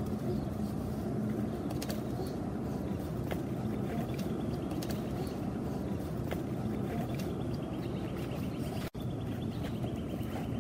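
Steady low outdoor background rumble with faint scattered clicks and faint high chirps; the sound cuts out for an instant about nine seconds in.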